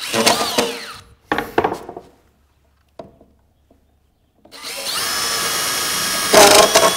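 DeWalt cordless drill boring starter holes into a moose skull's bone: two short bursts that spin down, then a steady run of about three seconds starting past the middle, louder near the end.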